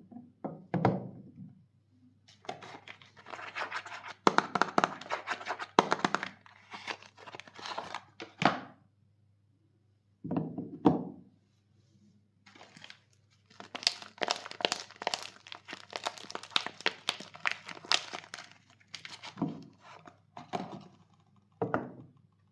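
Soap bar wrappers being torn open and crinkled, in two long stretches of crackling and rustling, with a few short thunks in between.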